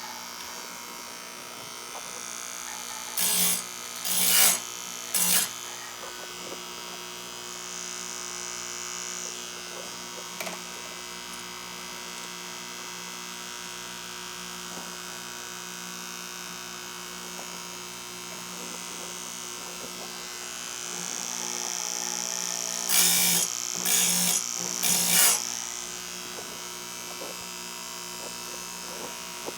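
Small electric chainsaw-chain grinder running steadily with a humming motor, its wheel grinding a chain tooth in three short passes a few seconds in and three more about twenty seconds later: light passes to set the profile, then a heavier one.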